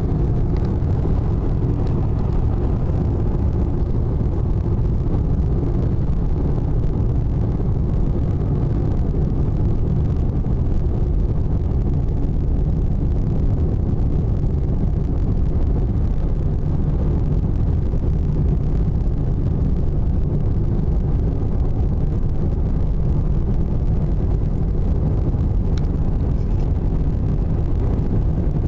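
A car driving at a steady speed: a constant low rumble of road and engine noise.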